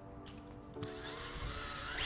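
Background music, with an electric router's motor starting up just under a second in, its whine rising steadily in pitch as it spins up.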